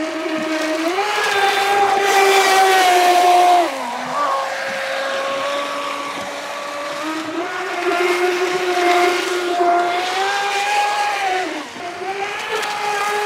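3D-printed RC boat's electric motor whining at speed. Its pitch rises and falls with the throttle, dropping sharply about four seconds in and again near the end.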